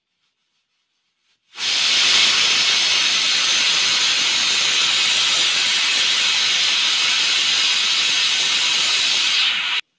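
A loud, steady hiss that starts suddenly about a second and a half in and cuts off just before the end.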